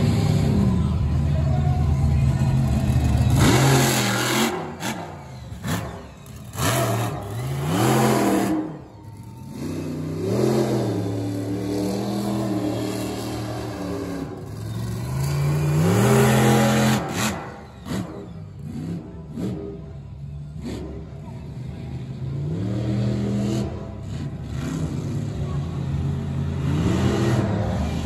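Monster truck engine revving hard again and again, its pitch climbing and dropping every few seconds, with short louder bursts of acceleration.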